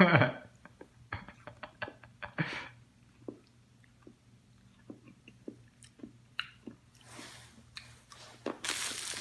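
Fun Dip candy being chewed: scattered small wet clicks and crunches, with a couple of longer rustling noises near the end.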